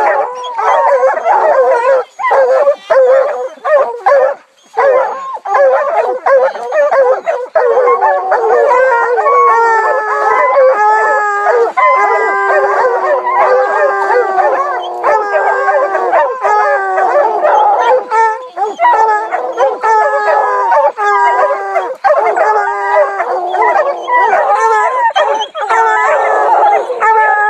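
A pack of hunting hounds baying and howling nonstop at the foot of a tree, many voices overlapping. This is their tree bark, the sign that a bear is treed above them.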